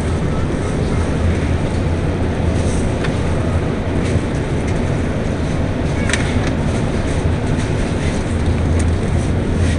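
Steady low rumble of a carried camera's microphone moving and rubbing, with a few faint clicks.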